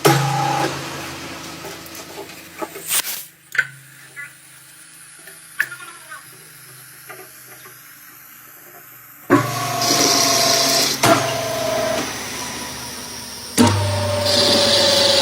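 Lathe cutting a thread in repeated passes: a pass ends just after the start, a quieter stretch of several seconds with scattered clicks follows, then two more passes begin about nine and thirteen seconds in. Each pass is a steady whine with a hiss.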